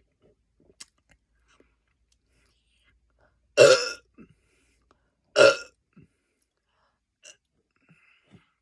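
A man belching twice after chugging a Coke: two short, loud burps less than two seconds apart, the first about three and a half seconds in.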